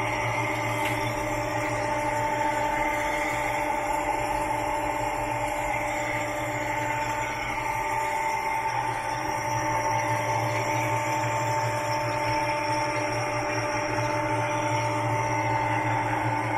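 Semiral SM 45 radial drill running: a steady motor hum with a constant high whine from the spindle drive.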